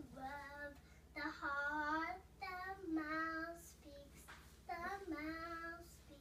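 A child singing unaccompanied, in phrases of held notes with a slightly wavering pitch and a short pause about four seconds in.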